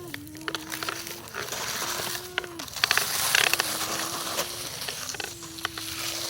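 Electric motor of an RC excavator whining in four bursts of about a second each, starting and stopping as the controls are worked, with stones clicking and scraping under the bucket and a short crunch about halfway through.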